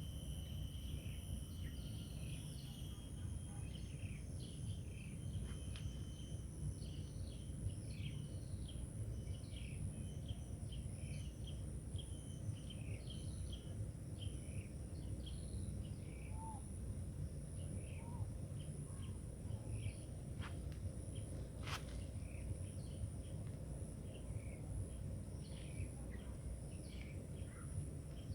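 Insect chorus with a steady high-pitched whine throughout, and short bird chirps scattered across it, over a low steady rumble. A couple of sharp clicks come about 20 and 22 seconds in.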